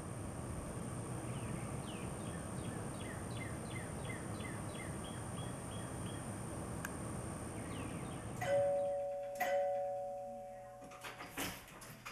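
Outdoor ambience with a string of short bird chirps. About two-thirds of the way in, a doorbell chimes twice about a second apart, each chime ringing out slowly. A few sharp clicks follow near the end.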